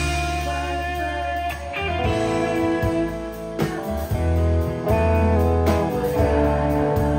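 Live rock band playing: electric guitar over drums, with a deep, sustained low line underneath.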